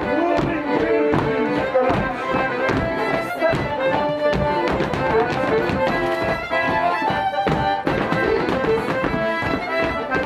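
A lively traditional dance tune played live on folk instruments accompanies a rapper sword dance. Sharp, fairly regular taps and clacks from the dancers' stepping and their swords run through it.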